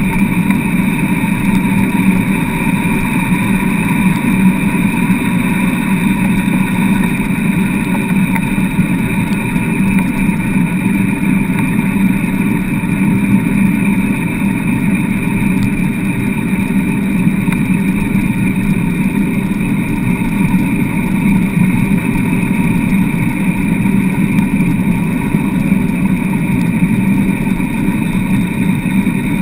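Wheeled dog rig rolling at a steady pace over hard beach sand, heard through a camera mounted on the rig's frame: a continuous, even rolling noise with a steady hum from the frame and wheels.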